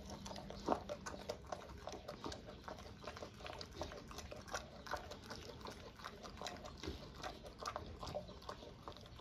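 Large dog chewing and gnawing at a whole raw duck: faint, irregular crunches and clicks of teeth on meat and bone.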